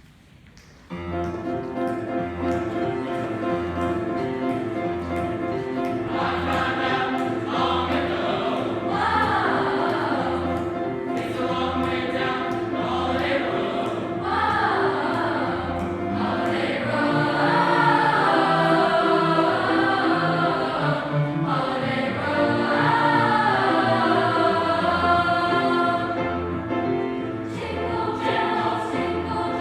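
School choir singing a Christmas carol medley over an accompaniment with a steady, evenly pulsing bass. The music starts suddenly about a second in.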